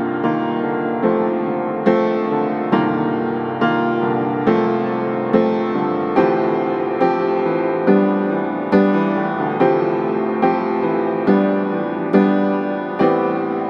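Slow background piano music, with notes and chords struck at an even pace a little under once a second.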